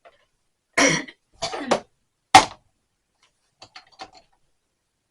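A couple of coughs, then a single sharp clack of a tool or toolbox part being handled, the loudest sound, followed by a few faint light clinks.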